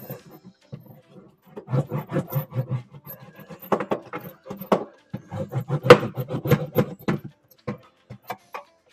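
Crackling, rubbing handling noise of self-adhesive butyl sound-deadening sheets being worked and pressed into a car's fender cavity, in two irregular stretches of many short scratchy strokes over a low rumble.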